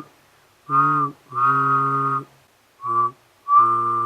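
A man humming and whistling at the same time to imitate a train whistle. There are four toots, a short one then a long one, twice, each a low hum under a high steady whistle.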